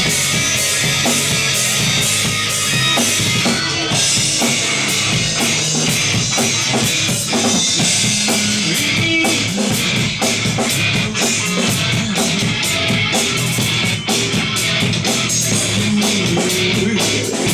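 Rock music with a drum kit and guitar: steady, busy drumming with frequent cymbal and drum hits over a sustained guitar and bass.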